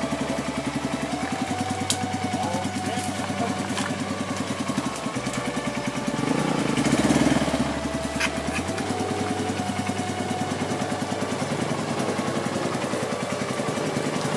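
Dirt bike engine idling steadily, louder for a moment about six to seven seconds in.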